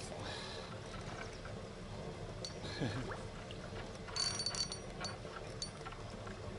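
A hooked carp splashing and swirling at the surface while it is played on a bent float rod, with scattered light clicks from the tackle.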